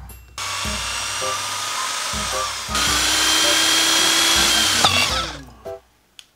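Electric drill running with a steady whine, louder from just under three seconds in as the bit bores into a wooden stick, then winding down with a falling pitch about five seconds in.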